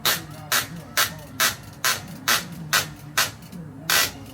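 Rhythmic hand scraping or brushing strokes on metal, about two a second, with one louder stroke near the end.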